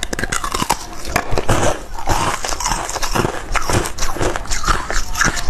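Close-miked biting and crunching of ice frozen with basil seeds: many sharp, irregular cracks in quick succession as pieces are bitten off and chewed.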